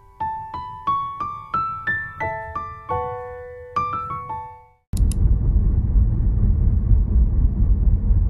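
A short piano melody of single notes, about two or three a second, climbing and then falling, that ends about five seconds in. After a brief gap comes a loud, steady low rumble of road and wind noise inside a moving car.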